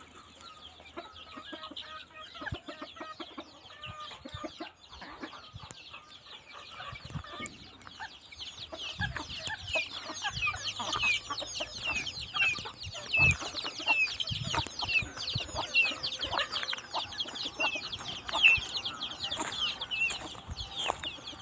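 Farmyard birds chirping and clucking, many short high chirps in quick succession that grow denser and louder about halfway through, over scattered clicks and knocks.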